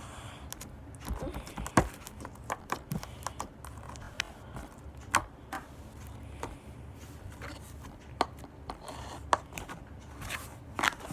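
Slime being squeezed and stretched in the hands, giving irregular sticky clicks and pops, a few of them sharp and loud, over a steady low hum.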